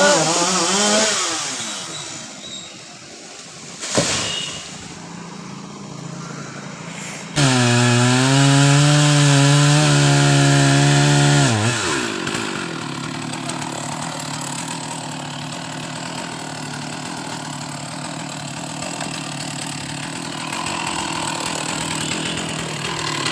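Chainsaw engine revving briefly, then a sharp knock about four seconds in. The saw then runs loud at full throttle for about four seconds before dropping back to a lower, steady running.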